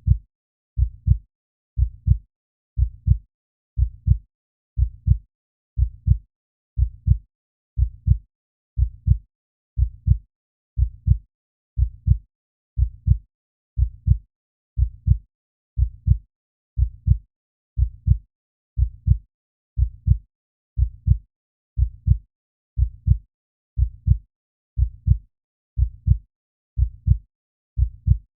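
Heartbeat sound effect: a steady lub-dub, two low thumps close together, repeating evenly about once a second.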